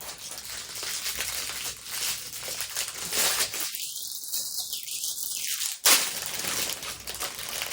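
Bag of fidget toys being rummaged through by hand, the packaging crinkling and rustling, with one sharp click about six seconds in.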